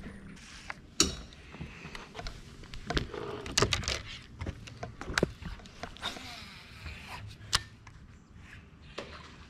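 Scattered knocks and clicks of fishing rods and reels being handled on the deck of a bass boat. The loudest knock comes about a second in.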